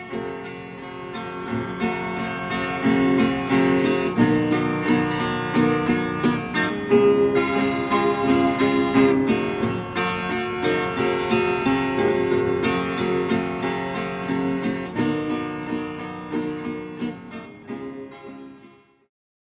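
Acoustic guitar music with a steady rhythm, fading out over the last few seconds and stopping just before the end.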